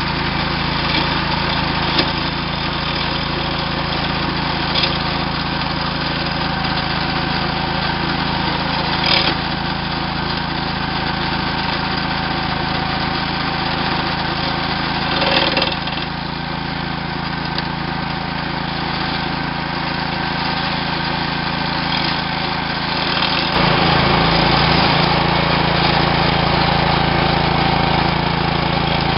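Small single-cylinder gasoline engine of a walk-behind trencher running steadily under load as its blade cuts a narrow trench in the turf, with a few short sharp ticks. About three-quarters of the way through the engine note suddenly shifts and gets louder.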